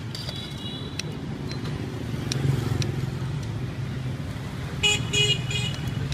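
Street traffic rumbling steadily, with a vehicle horn tooting briefly near the start and again in two short toots about five seconds in. A few light clicks of kitchen scissors snipping meat come through in between.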